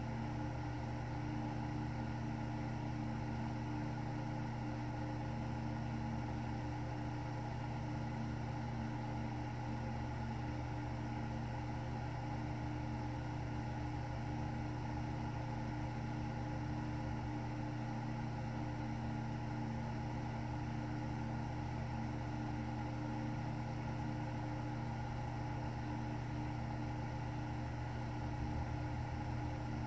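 A steady low machine hum holding several constant pitches, with no rise and fall of breathing in it.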